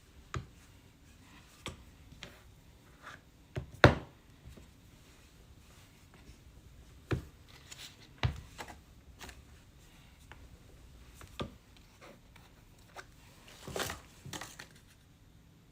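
Scattered taps and knocks of tools and clay pieces being handled on a worktable during slab building, with one sharp knock about four seconds in.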